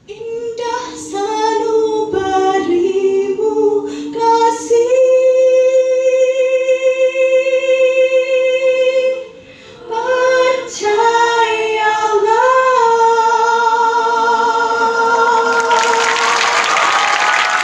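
Mixed choir singing a cappella: a few short phrases, then long held chords with a brief break about halfway. Applause breaks out near the end over the final held chord.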